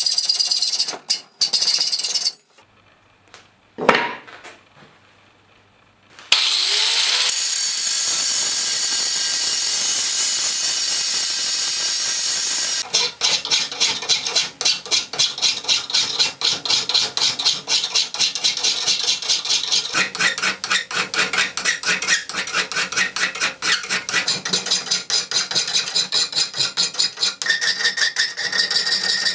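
Steel knife blank of O1 tool steel clamped in a bench vice and worked by hand. It starts with a few saw strokes. After a short near-silent break with a single knock comes about six seconds of steady power-tool noise. From about halfway on, a metal file rasps along the blade in quick, even strokes, about three a second.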